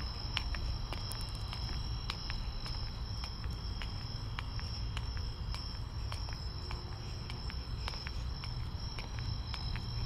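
Crickets trilling in one steady high-pitched tone, over a low steady rumble, with scattered faint clicks.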